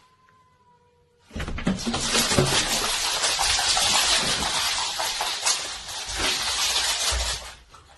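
A loud, steady rushing noise starts about a second in and stops shortly before the end, with a few low thumps under it.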